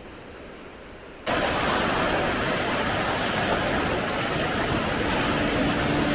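A river in spate rushing over rocks: steady white-water noise, fairly quiet at first, then suddenly much louder and closer about a second in.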